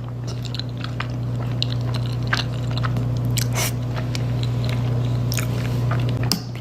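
Close-miked chewing of carbonara Buldak noodles and tteokbokki, with many small wet mouth clicks and crackles. A steady low hum runs underneath.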